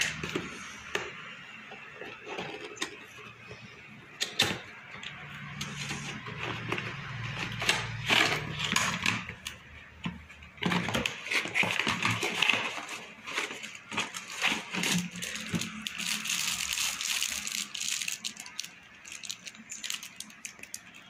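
Unboxing handling noise: scissors cutting a cardboard box, cardboard and plastic packaging rustling, and scattered clicks and knocks as the plastic toy blaster and its bag of foam darts are taken out and set down.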